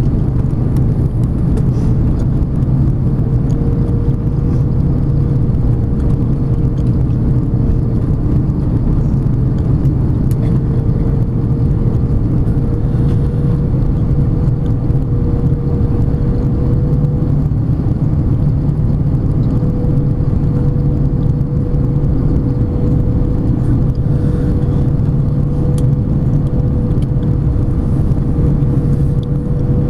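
Cabin noise inside an Airbus A330 descending on approach to land: the steady rush of airflow and drone of the turbofan engines, with a low hum and a steady whine holding its pitch.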